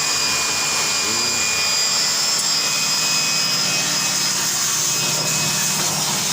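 Electric pressure washer running steadily, its motor giving a high whine over the hiss of water spraying as an air-conditioner evaporator coil is washed.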